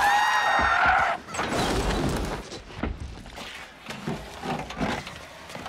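A car horn blares steadily and cuts off about a second in. Then come clattering and several thuds and knocks, like objects falling and being knocked about.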